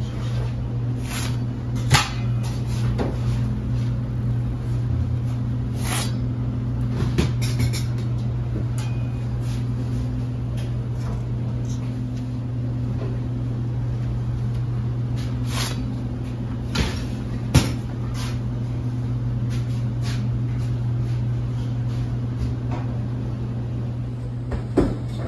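Kitchen work noise: a steady low machine hum with scattered sharp knocks and clicks of things being handled, about half a dozen over the stretch.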